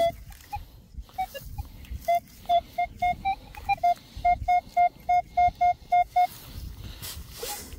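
Minelab Manticore metal detector beeping as its coil passes over a target in a dug hole: a run of short tones, about four a second, mostly on one pitch with a few slightly higher, starting about two seconds in and stopping a little after six. The detectorist reads the signal as copper, a copper coin.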